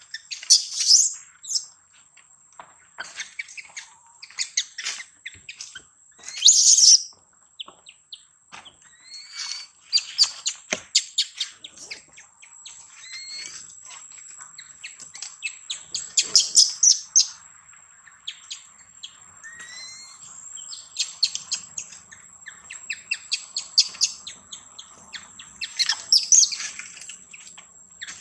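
Infant macaque crying: high-pitched squeals and rapid chattering cries in repeated bursts every few seconds.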